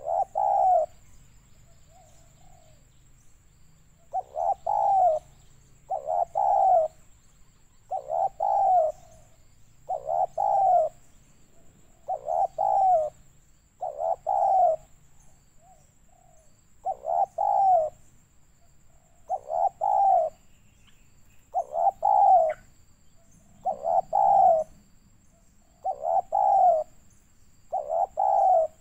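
Spotted dove cooing: short phrases repeated about every two seconds, with a couple of brief pauses.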